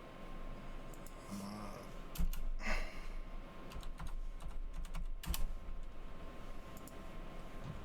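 Typing on a computer keyboard: a few scattered key taps and clicks at an irregular pace.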